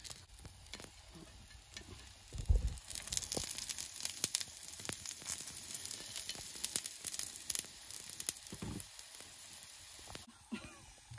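Chapati frying in fat on a flat iron pan over a wood fire: a steady sizzle with scattered sharp crackles, growing louder about two and a half seconds in, with a couple of low knocks. It cuts off abruptly near the end.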